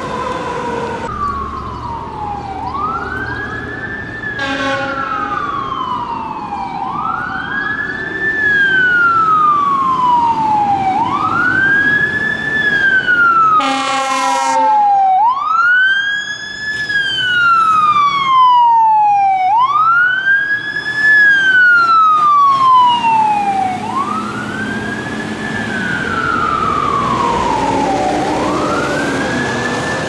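Fire truck's mechanical Q siren wound up again and again, each time rising quickly to a high wail and falling slowly, in a steady repeating cycle. Two short air horn blasts cut in, a brief one about four seconds in and a longer one about fourteen seconds in.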